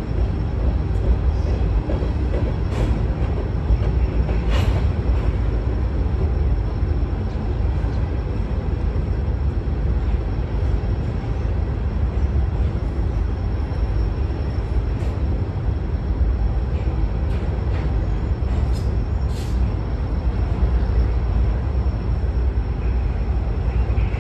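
Norfolk Southern covered hopper cars rolling past on a freight train: a steady low rumble of wheels on the rails, with a few brief sharp clicks and squeaks scattered through.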